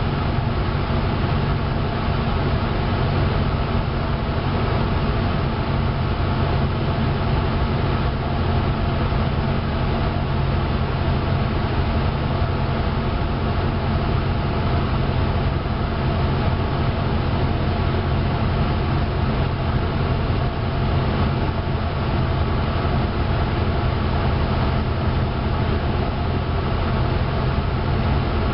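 Cessna 172's piston engine and propeller running steadily, heard from inside the cabin, with a low pitch that does not change.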